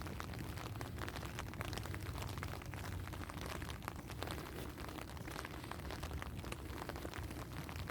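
Rain falling, with many irregular sharp drop ticks over a steady low rumble.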